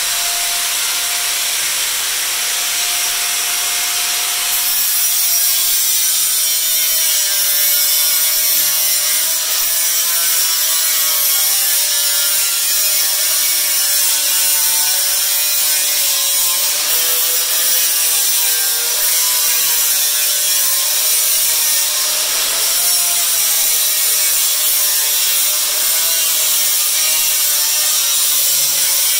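Metabo angle grinder with a cutting wheel cutting through embossed aluminum diamond plate. The motor whines steadily at first. About four seconds in the wheel bites, and from then on the whine dips and wavers in pitch under load over a harsh hiss from the cut.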